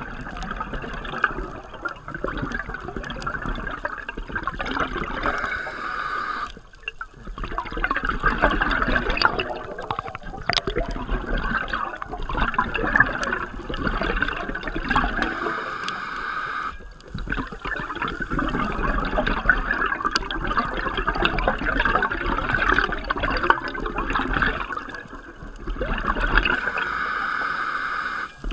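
Scuba regulator exhaust bubbles recorded underwater: long stretches of bubbling and gurgling as the diver breathes out, broken by brief quieter pauses about every ten seconds as they breathe in.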